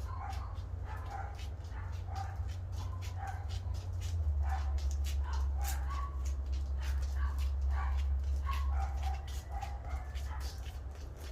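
A small pet animal making short, high whimpering calls, roughly two a second, with light clicks between them over a steady low hum.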